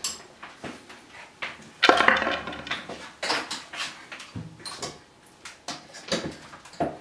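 Plastic clicks, knocks and light clatter of a hand blender being plugged in and handled over a plastic beaker, with one louder burst of handling noise about two seconds in.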